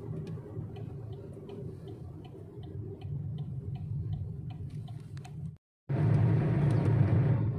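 A car's turn-signal indicator clicking steadily, about three clicks a second, over the low hum of the engine idling inside the cabin. About five and a half seconds in, the sound cuts out for a moment and comes back as louder engine and road noise from the car driving on.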